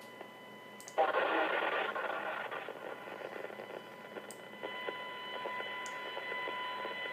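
Radio static hissing through a speaker, cutting in suddenly about a second in, over a faint steady high whine.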